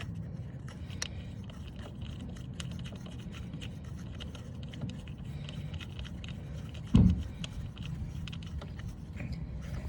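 Faint scrapes and light clicks of hands and parts being handled in the engine bay, with one loud thump about seven seconds in.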